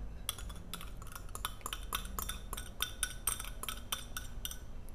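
Wire whisk clinking against a plastic mixing bowl and a cup, a run of light clicks about four a second, as melted butter goes onto sugar and lemon zest for muffin batter.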